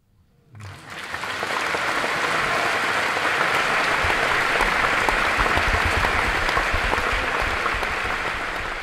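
Concert hall audience bursting into applause about half a second in, after near silence, at the end of a piano piece. The applause builds within a second to steady, loud clapping, with dull low knocks mixed in from about four seconds in.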